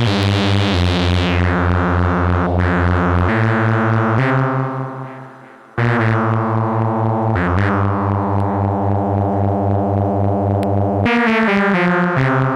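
PAiA Fatman analog monosynth playing sustained bass notes whose tone darkens as the filter closes after each attack. One note fades away about five seconds in before a new bright note starts, and near the end it plays a quicker run of shorter notes.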